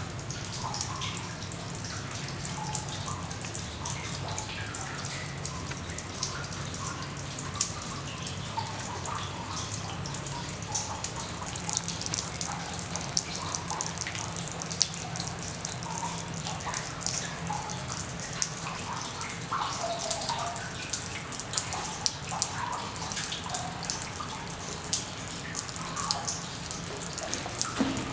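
Water dripping from mineral runoff formations on a mine tunnel's rock roof into shallow pools on the floor: many irregular drips plinking and splashing over a steady background of trickling water.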